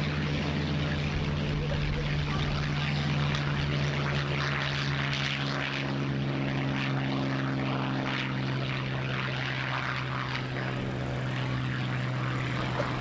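North American P-51 Mustang's V-12 Merlin engine at full power on take-off: a steady, even-pitched propeller-plane drone.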